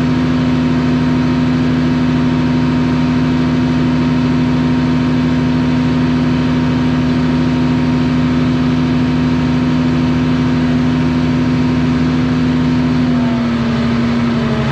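Diesel engine of a bulldozer pulling a tile plow, running steadily under load and heard from inside the cab. Its note dips a little near the end.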